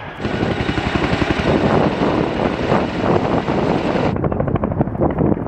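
Chinook tandem-rotor helicopter's rotors beating in a fast, steady chop. About four seconds in the sound changes abruptly and becomes duller.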